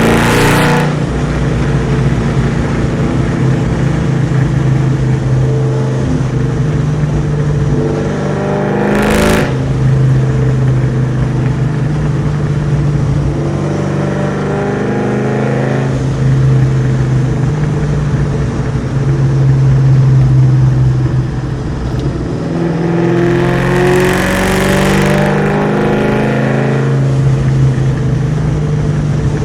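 Cammed, Whipple-supercharged Mustang SVT Cobra 4.6-litre V8 through Kooks headers and a Borla ATAK exhaust, heard from inside the cabin while driving. The engine note climbs and drops repeatedly with throttle and gear changes, with a few short, loud rushes of noise.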